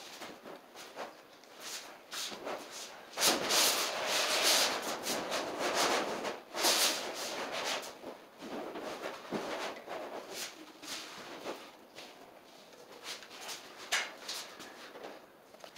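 Sheet vinyl flooring rustling and scraping as it is handled on the floor, with scattered clicks and scuffs; loudest for a few seconds about three seconds in.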